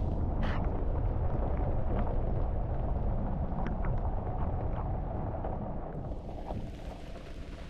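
A vehicle rolling slowly along a wet gravel road in rain, making a steady low rumble of tyres and engine with scattered sharp ticks.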